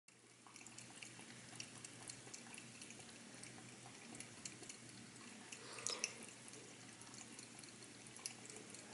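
Cat lapping water from a glass jar of grey paint-rinse water: a run of faint, quick wet ticks, with a slightly louder one about six seconds in, over a low steady hum.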